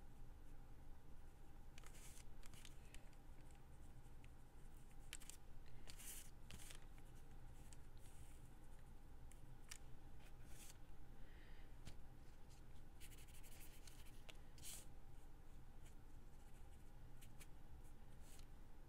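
Faint, scattered scratchy strokes of a craft tool rubbing and dabbing on paper card as it is distressed, in short clusters with pauses between, over a low steady room hum.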